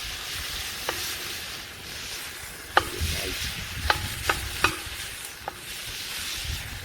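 Minced meat and vegetables sizzling as they fry in a metal pot, stirred with metal tongs that clink sharply against the pot about six times, each clink ringing briefly.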